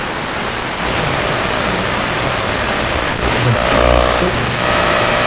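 AM radio static between stations, a steady dense hiss, with a thin heterodyne whistle in the first second and an interference buzz with a low hum cutting in and out from about three and a half seconds in.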